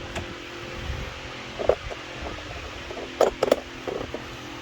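Electric fan running steadily with a low hum, with a few short knocks: one about a second and a half in and two close together a little past three seconds.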